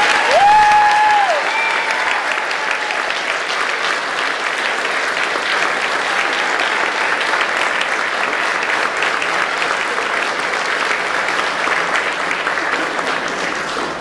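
Audience applauding steadily, with a single held whoop from one person about half a second in. The applause fades away at the very end.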